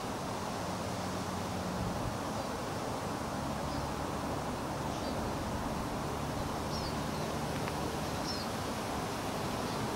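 Outdoor ambience: a steady rush of wind with a faint low hum beneath it, and a few short, faint bird chirps in the second half.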